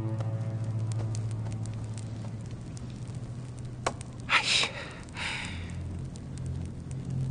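Torch and brazier fires crackling faintly over a steady low hum. A sharp click comes just before four seconds in, followed by two short, loud breathy hisses.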